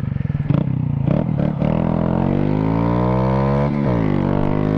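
Honda Grom's 125 cc single-cylinder four-stroke engine pulling the motorcycle along a road. The revs climb steadily, drop sharply for a gear change near the end, then climb again.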